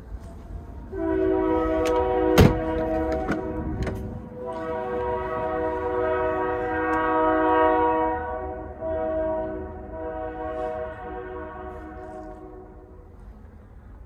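A train's air horn sounding a chord of several tones in the long-long-short-long pattern sounded for a level crossing, the last blast fading away. A few sharp clicks come early in the first blast, the loudest about two and a half seconds in.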